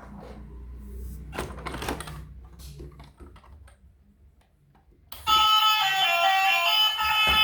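Clicks and short rustles of toys and packaging being handled. About five seconds in, a loud melody of bright, ringing notes starts abruptly.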